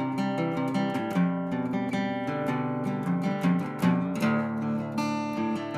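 Background music: acoustic guitar plucked and strummed in a steady run of notes.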